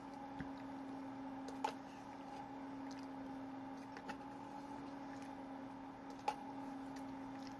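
Spoon clicking and scraping in a plastic yogurt cup: four sharp clicks, the loudest about six seconds in, over a steady low hum.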